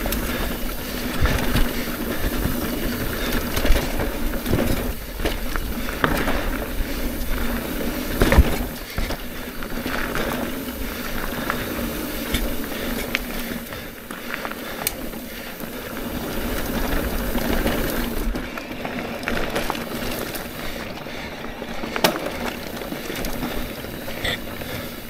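Trek Rail electric mountain bike rolling down a dirt trail: steady tyre and rattling noise with a low rumble that eases about eighteen seconds in. Sharp knocks about four, eight and twenty-two seconds in.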